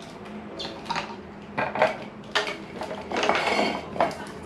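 An aluminium cook pot and a plastic water bottle being handled and set down on a wooden table: a series of short knocks and clinks, with a brief scraping rattle about three seconds in.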